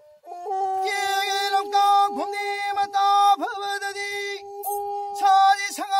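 Manipuri pena, a bowed single-string folk fiddle, played in a sustained, steady-toned melody with dipping slides, and a man singing with it in short phrases. The music starts after a brief pause right at the beginning.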